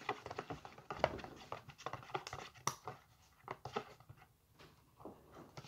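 Hands stirring and squishing wet slime mixture in a plastic tub: quick, irregular squelches and clicks that thin out in the second half.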